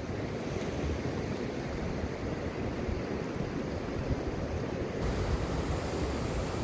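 Steady rushing noise of a small mountain river, with wind buffeting the microphone, stronger from about five seconds in.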